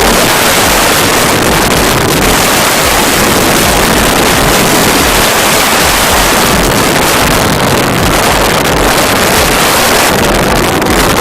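Loud wind noise buffeting the microphone of a moving vehicle: a steady rush that covers every other sound.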